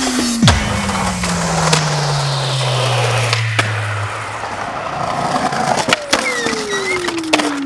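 Skateboard on concrete and stone: wheels rolling with a rough grind, broken by several sharp clacks of the board's pops, rail contact and landings, the hardest about half a second in. A long tone slides slowly down in pitch underneath and starts again near the end.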